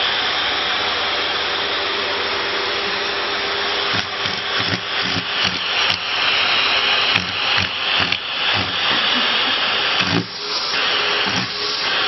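Vacuum cleaner running, air rushing through the hose nozzle. The rushing is steady at first, then broken from about four seconds in by irregular short knocks and changes in the suction sound.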